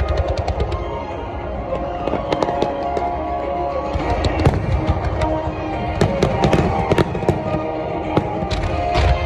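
Fireworks display: aerial shells and ground-level mines firing in a rapid run of sharp bangs and crackles, heaviest in the second half, with music playing along underneath.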